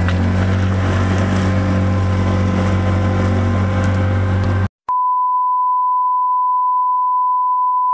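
Small fishing boat's motor running steadily under way, with rushing hiss over the engine note. About four and a half seconds in it cuts off abruptly, and after a short gap a single steady test-tone beep takes over.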